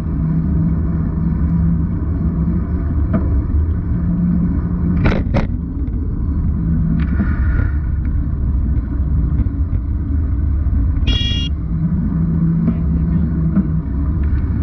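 Muffled, boomy rumble of wind and road noise picked up by an action camera sealed in its waterproof housing on a moving bicycle, with a steady low engine hum from a motorcycle riding close alongside. A short high-pitched tone, like a horn, sounds about eleven seconds in.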